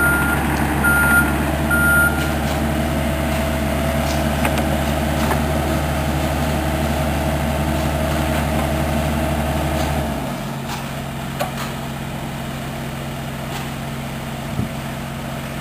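A truck's reversing alarm beeps about once a second over its running engine; the beeping stops about two seconds in. About ten seconds in, the engine's low hum drops away to a quieter steady running.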